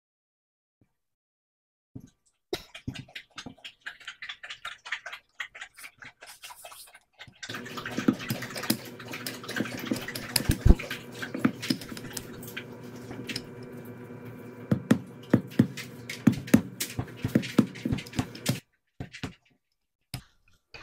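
A dog lapping water from a bowl: a quick run of wet laps, about four a second, growing louder and denser about seven seconds in, then stopping about two seconds before the end.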